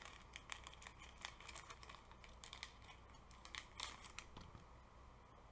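Faint crinkling of a Pokémon booster pack's foil wrapper as it is handled and the cards are slid out: a run of quick crackles that thins out after about four seconds.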